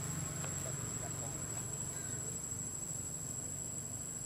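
Insects making a steady, high-pitched drone, over a low hum that eases off during the first couple of seconds.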